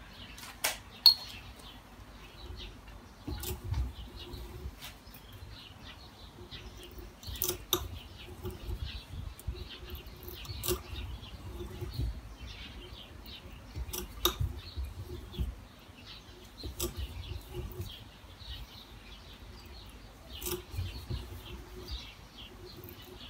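Taper tap being turned by hand in a tap wrench to cut a thread in a stainless steel disc: irregular crackling clicks and short high squeaks. The crackling comes as the tap is turned backwards and the chips break off.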